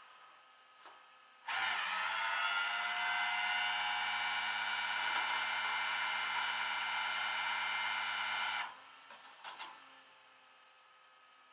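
Tow truck's loading machinery running under power: a steady mechanical whine that starts abruptly about a second and a half in, runs for about seven seconds and stops, followed by a few clicks.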